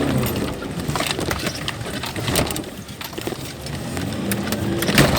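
Mitsubishi L200 pickup engine revving up and easing off while driving over rough off-road ground, with scattered knocks and rattles; a sharp knock stands out near the end.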